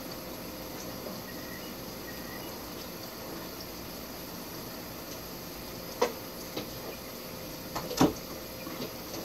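Plastic lidded storage box handled on a table: a sharp plastic knock about six seconds in, a few light taps, then a louder clack about eight seconds in as the lid is pulled open, over a steady background hiss.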